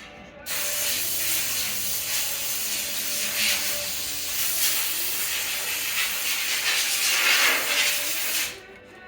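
A long pressurised hiss starts suddenly about half a second in, swells and eases a little, and cuts off abruptly about a second before the end.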